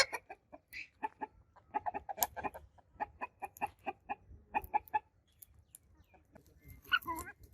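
Domestic chickens clucking: a rapid run of short clucks, about three or four a second, then a louder wavering call near the end.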